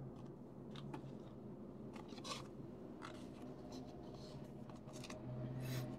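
Glossy trading cards handled by hand: soft scrapes and flicks as cards slide against one another, a few short swipes spread through. A low steady hum lies underneath and grows a little louder near the end.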